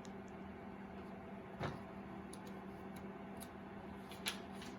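A picture book's pages being handled and turned: a few soft rustles and ticks, the loudest about a second and a half in and again near the end, over a steady low hum.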